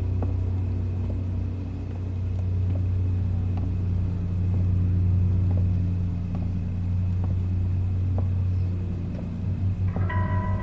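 Low, steady rumbling drone of a suspense film score, with faint footsteps on pavement. Near the end, higher sustained music tones enter and the sound starts to pulse.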